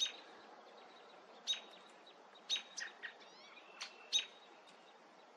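Young bird giving short, sharp chirps, about half a dozen spaced a second or so apart, with a quick run of rising notes in the middle.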